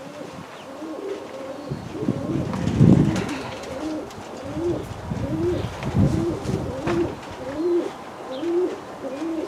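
Racing pigeons cooing, a run of short rolling coos repeating about twice a second. Two low rumbles, around three and six seconds in, are louder than the coos.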